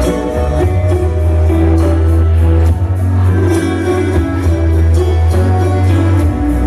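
Loud music with a heavy bass line and a steady beat.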